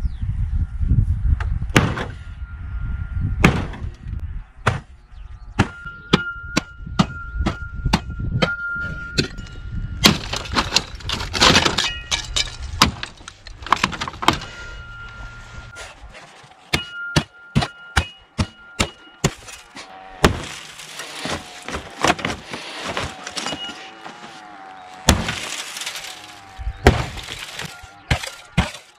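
Repeated blows of a Cold Steel pole axe's steel head into a Volkswagen Golf's sheet-metal body: sharp, irregular metal impacts, about one to two a second, with glass cracking and crunching. A thin steady high tone comes and goes behind the blows.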